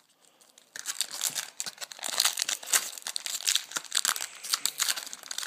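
Foil trading-card pack wrapper being torn open and crinkled, an irregular run of crackles that starts about a second in.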